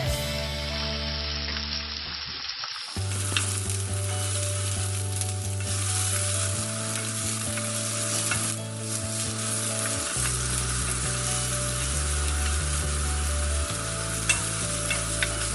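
Food sizzling and frying in hot oil in a pan, with occasional sharp ticks of a utensil against the pan.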